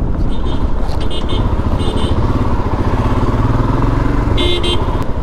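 Royal Enfield Himalayan's single-cylinder engine running as the motorcycle is ridden, a steady low thrum, with a few short high beeps over it.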